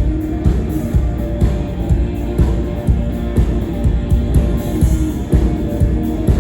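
Live rock band playing: electric guitar and drum kit, with the kick drum hitting a steady beat about twice a second.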